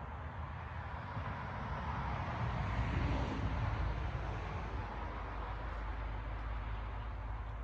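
A passing vehicle: a steady rumbling noise that swells to its loudest about three seconds in, then fades.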